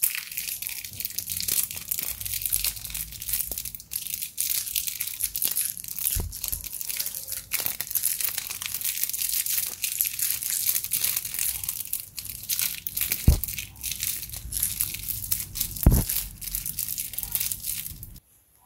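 Close-up crinkling and crackling of a small plastic snack wrapper, with dense sharp ticks and a few soft thuds of handling, stopping abruptly near the end.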